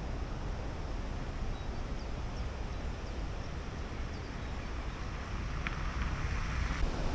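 Wind buffeting the microphone over the steady rush of water pouring over a river weir.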